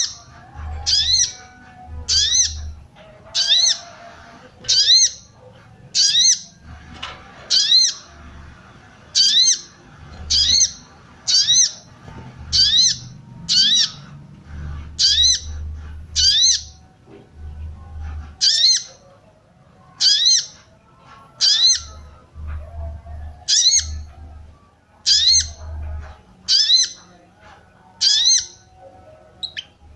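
A female sogon (sogok ontong) repeating a short, rising "cuit" call about once every 1.3 seconds: the call a female uses to draw and excite a male.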